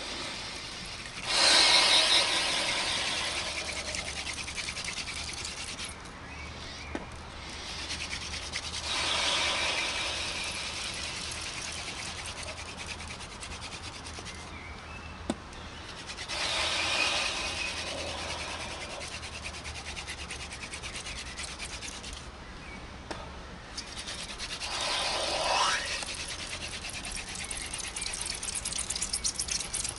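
Wooden hand drill spindle spun hard between the palms in a fireboard notch: a continuous dry wood-on-wood rubbing that breaks off briefly about every seven to eight seconds and swells louder a few times. This is the speed-and-pressure stage that builds up hot dust toward an ember.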